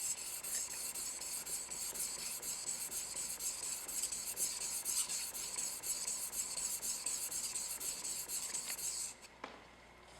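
Japanese santoku blade being stroked repeatedly across a whetstone: a steady, high scraping rasp that stops about nine seconds in.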